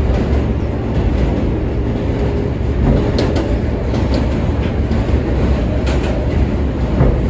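An R143 subway car running at speed, heard from inside the car: a steady rumble of wheels on rail, with a few sharp clacks about three seconds in and again around six seconds.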